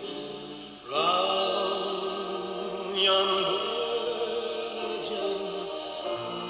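Music of long held, chant-like notes. A new phrase enters with an upward slide about a second in, and another enters about three seconds in.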